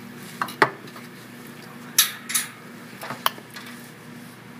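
Light metallic clicks and clinks of parts being handled on a motorcycle CV carburetor: the aluminium diaphragm cover and metal straight edges knocking against the carb body. A few sharp ticks, with two louder clattering clinks about two seconds in.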